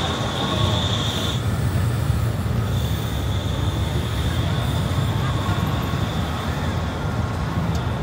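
Tram wheels squealing on the rails: a steady high squeal that breaks off about a second and a half in and returns, weaker, a second later, over a low rumble of city traffic.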